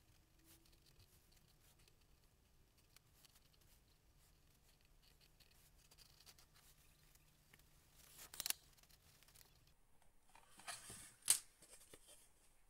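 Faint pencil scratching on paper, then short sharp rustles of a sheet of drawing paper being handled and lifted, the loudest near the end.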